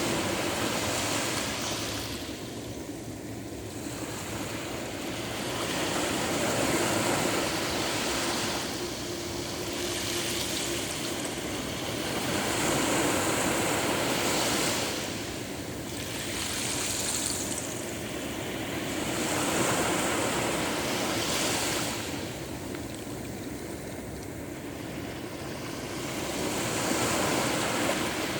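Caspian Sea waves washing onto the shore: a steady wash of surf that swells and fades about every six or seven seconds.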